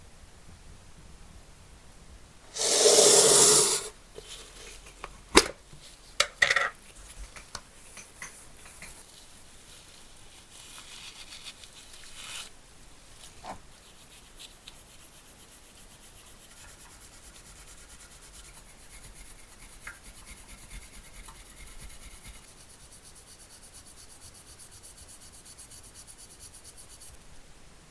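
Hand work on a metal piece: a loud noisy rush lasting about a second, a few sharp clicks, then fast, even rubbing or filing strokes that stop suddenly near the end.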